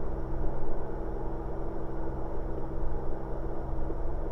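Cirrus aircraft piston engine running steadily on a single magneto, misfiring on cylinder number 6 because of a bad spark plug.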